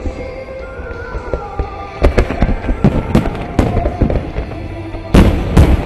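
Fireworks going off in a run of sharp bangs from about two seconds in, the loudest cluster near the end, with music playing in the background.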